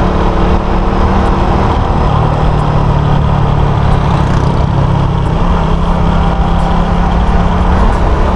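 Suzuki Raider 150 FI's single-cylinder engine running steadily while cruising, with wind rushing over the on-bike microphone. The engine note shifts slightly about two seconds in.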